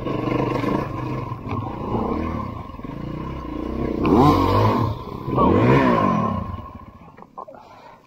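Dirt bike engines running on a muddy trail, then revved hard twice, the pitch rising and falling each time; the engine sound drops away about seven seconds in.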